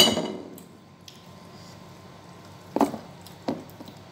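Tableware at a meal: a sharp clink of a dish or utensil that rings briefly right at the start, then two soft knocks of food being picked by hand from a ceramic bowl near the end.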